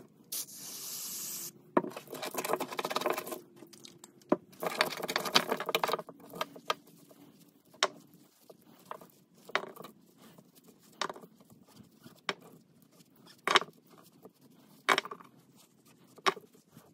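Blue shop rag rubbing as steel ring-gear bolts are wiped clean of oil and brake cleaner, then sharp metallic clicks about once every second and a half as each wiped bolt is set down and clinks against the others. A brief hiss comes just at the start.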